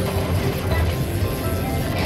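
Aristocrat Lightning Link (Tiki Fire) slot machine playing its bonus win-tally music and effects at a steady level while the bonus total counts up.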